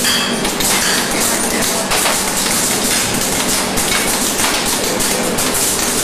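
PVC label dispensing line running: a steady noise with many light taps and knocks throughout.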